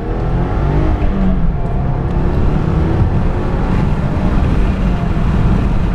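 2015 Subaru WRX's turbocharged 2.0-litre flat-four engine running hard under acceleration on a new Stage 1 tune, with a loud, steady low drone. Its pitch climbs in the first second, then holds.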